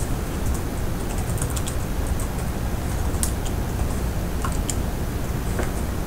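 Computer keyboard typing: scattered, irregular key clicks over a steady background hiss.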